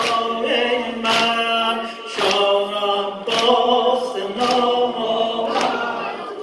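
A man chanting a Persian Muharram mourning lament into a microphone, with other men's voices joining in and a sharp slap about once a second keeping the beat.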